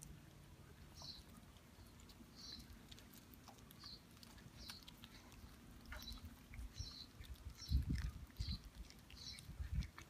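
Kittens chewing and gnawing on a raw chicken neck, with faint wet clicks. A bird chirps repeatedly in the background. Low thumps come in near the end and are the loudest sound.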